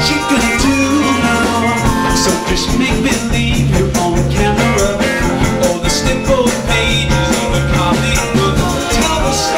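A live band playing an upbeat groove, with drums, bass, guitar and percussion over a steady beat.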